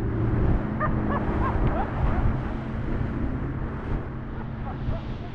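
Boat motor running steadily, with wind on the microphone and water noise. A few short high chirps sound about a second in.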